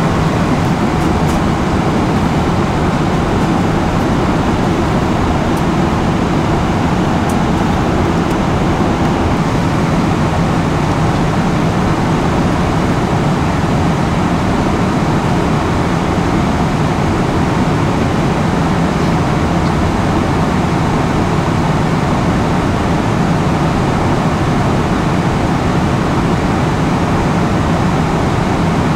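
Steady in-flight cabin noise of a Boeing 777-300ER airliner: an even rush of airflow and engine noise with a low hum beneath it.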